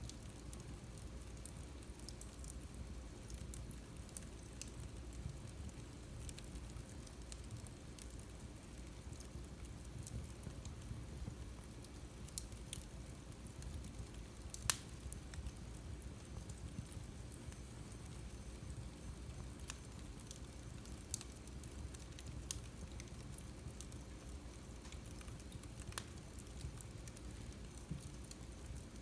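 Wood fire burning in a fireplace: a low steady rumble of flames with scattered crackles and pops, one sharper pop about halfway through. A faint, very high whistle sets in about twelve seconds in and carries on.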